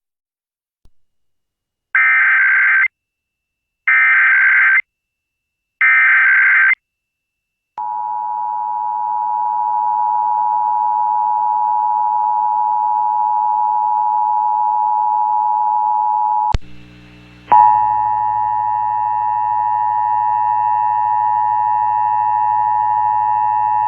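Emergency Alert System broadcast over FM radio: three short, screechy digital data bursts of the SAME header, about two seconds apart, then the steady two-tone EAS attention signal starting about eight seconds in. The attention tone is broken by a sharp click and a brief drop about two-thirds of the way through, then carries on.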